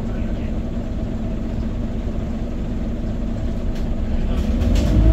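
Scania OmniCity city bus's diesel engine heard from inside the passenger cabin. It runs with a steady low hum, then rises in pitch and gets louder near the end as the bus pulls away.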